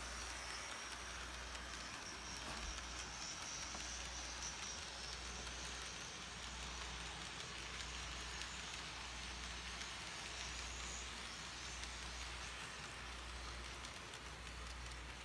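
Model train running on the layout's track: a steady faint hiss of wheels and motor, with a low rumble that comes and goes every second or two.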